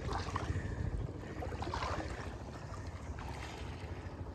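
Wind buffeting the microphone as an uneven low rumble, over splashing and lapping of shallow floodwater around people wading.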